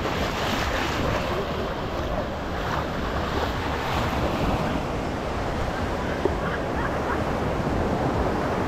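Ocean surf washing onto a sandy beach, a steady rush of noise, with wind buffeting the microphone.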